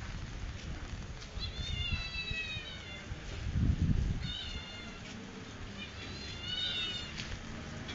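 Kitten mewing three times in high, thin cries, the first about a second and a half in and held for over a second, the others shorter. A low rumble comes between the first and second mews.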